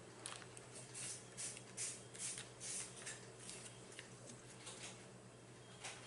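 Sour cream squeeze bottle being squeezed, letting out a run of soft sputtering spurts, about two to three a second, that fade toward the end.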